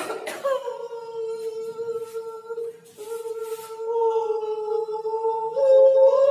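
A 'choir cough' parody: a voice slides down out of a cough into a long held, sung vowel note. It breaks off briefly about three seconds in, holds the note again, and steps up to a higher note near the end.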